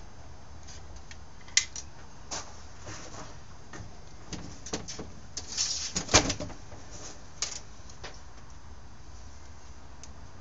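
Scattered small clicks and taps of hand work on a Stihl S10 chainsaw, as nuts and washers are fitted onto its carburetor studs, the sharpest about a second and a half in and around six seconds in.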